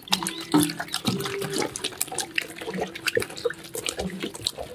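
Water splashing and squelching in a stainless steel sink as hands knead and wash raw pig lungs. The wet slaps and sloshes come irregularly throughout.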